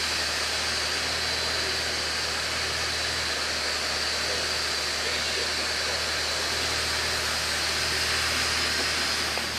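Car idling in park, a steady whooshing hiss like a blower fan running over a low, even engine hum.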